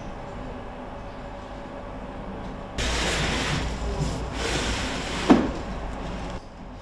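Factory-floor noise: a low steady hum, then from about three seconds in a louder even rushing noise, with one sharp knock about five seconds in as carbon-fibre tubes are handled at a drone wing.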